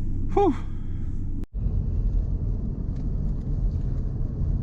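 BMW F20 1 Series car running with a steady low rumble. A short sigh, 'whew', comes near the start. The sound cuts out abruptly for an instant about a second and a half in, then the rumble resumes.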